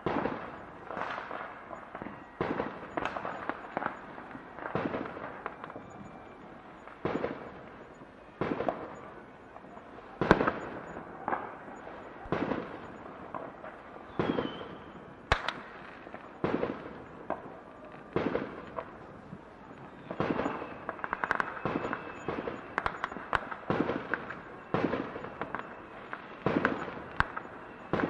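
Fireworks going off in a steady barrage, one bang every second or two, each trailed by crackling as the shells burst.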